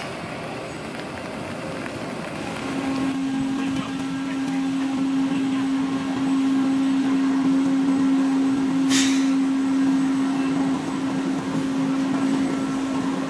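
A steady machine hum at one pitch, starting a few seconds in and growing louder, with a short hiss about nine seconds in.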